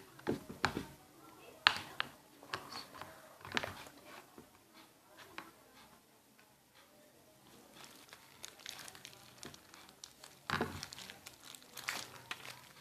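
Clicks, taps and crinkling from a plastic bottle of white Fox glue and a plastic container being handled as the glue is poured out, busiest near the start and again near the end, quieter in between.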